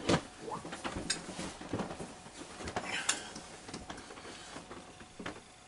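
Handling noises: irregular clicks, knocks and light scraping of a filler tub and tools being picked up, opened and set down.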